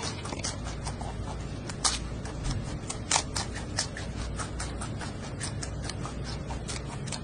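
Giant panda crunching and chewing a bamboo shoot: a run of crisp, irregular cracks and crunches over a steady low background hum, the sharpest about two and three seconds in.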